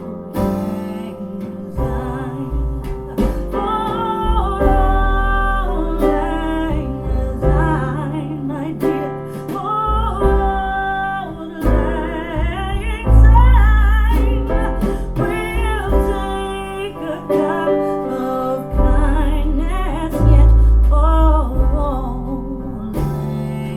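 A recorded song played back through Kef R11 Meta floor-standing loudspeakers: a wavering sung melody over guitar and deep bass notes.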